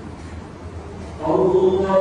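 A man's voice chanting in Arabic as he leads congregational prayer: a short pause, then a long melodic phrase begins a little past a second in, sung loud and held.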